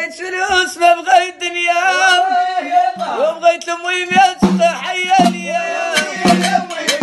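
Song in Moroccan Arabic: a male voice singing a wavering melody over steady percussion hits.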